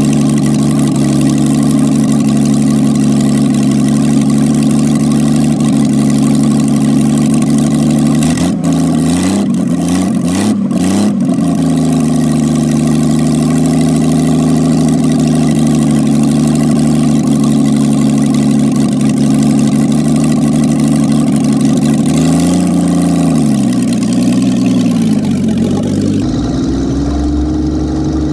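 Homemade speedster's engine idling steadily, with quick revs of the throttle about eight to eleven seconds in and again around twenty-two seconds. Near the end the sound switches to the engine heard close-up as the car pulls away, its pitch slowly rising.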